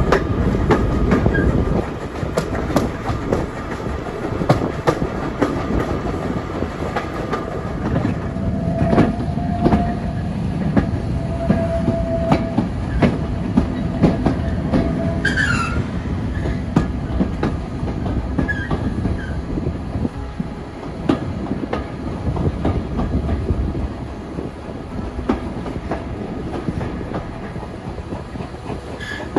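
A steam-hauled heritage passenger train's coaches running along the track, heard from an open carriage window: a steady rumble with the wheels clacking over rail joints. There are brief wheel squeals about nine and twelve seconds in, and another short squeal about halfway through.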